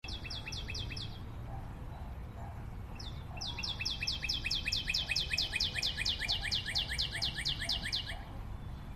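A bird calling a fast series of short descending chirps, about five a second: a brief run at the start, then a long run from about three seconds in until near the end. A steady low rumble lies under it.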